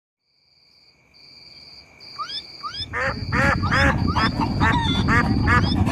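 Animal stampede sound effect fading in: a steady high trill and rising chirps, then from about three seconds a low rumble of a running herd builds, with honking and quacking bird calls layered over it.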